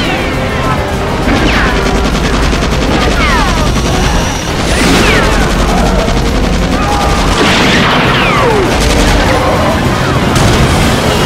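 Several action-film soundtracks playing over one another in a dense, loud mix of music, voices, gunfire and bangs. Falling whistle-like tones recur every second or two.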